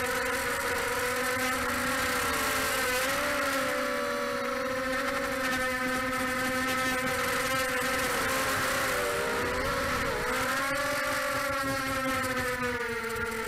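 Brushless motors and propellers of a 250-size FPV racing quadcopter in flight, heard from the craft's own camera: a steady buzzing whine of several tones that wobbles and dips in pitch with the throttle, most of all about nine to ten seconds in, then settles again.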